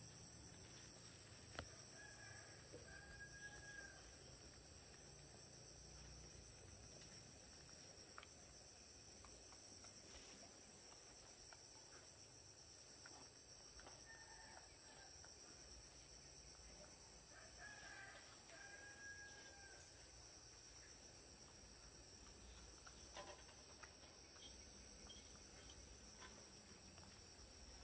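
Quiet rural ambience: a steady high insect drone, and a faint rooster crowing twice, a few seconds in and again about eighteen seconds in.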